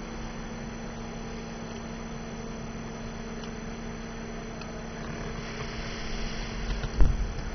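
A steady low hum with a faint even hiss, and a single low thump about seven seconds in.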